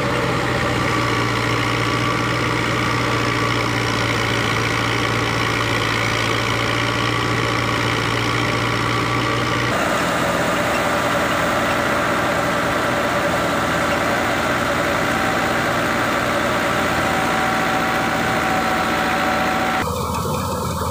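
New Holland Dabang 85 tractor's diesel engine running steadily under load, driving a wheat thresher that is running alongside it. The sound changes abruptly about ten seconds in and again near the end.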